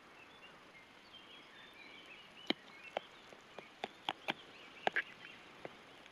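A knife blade clicking and scraping against the inside of a metal food tin while meat is scooped out: about ten sharp clicks starting about two and a half seconds in, with faint bird chirping behind.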